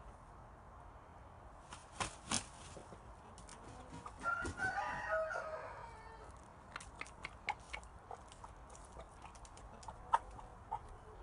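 A rooster crows once, about four seconds in, for over a second. Two sharp clicks come before it, and after it a run of short, sharp ticks as the rooster pecks at the straw-littered ground.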